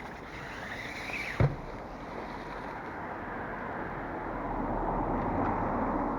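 Road traffic going by, one vehicle swelling louder and then easing off near the end, with a short low thump about a second and a half in.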